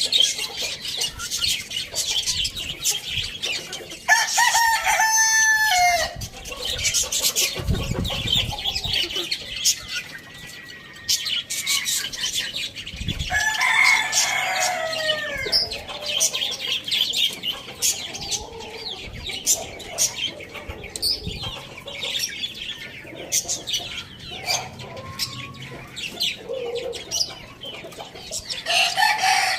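Rooster crowing: long drawn-out crows about four seconds in, again about thirteen seconds in, and another starting near the end, over steady clucking of chickens and a constant patter of high chirps.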